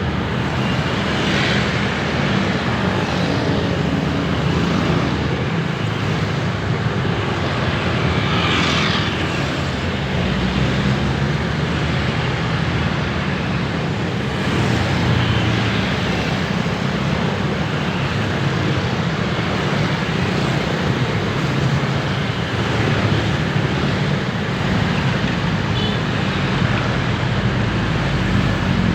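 Steady urban road traffic: a continuous low rumble of engines and tyre noise from vehicles passing on a busy city street, with a few louder pass-bys standing out now and then.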